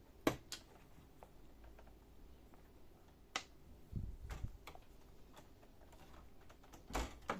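A few sharp plastic clicks and soft knocks from handling the printer while its ADF cable connector is unplugged: a click just after the start, another about three and a half seconds in, low knocks just after that, and a click-and-knock near the end.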